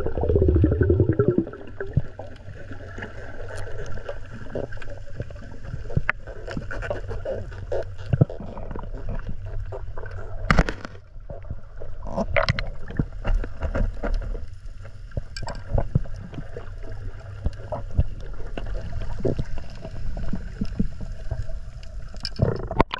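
Underwater sound picked up through a diving camera: a steady, muffled low rumble with scattered clicks and knocks throughout, a few of them louder.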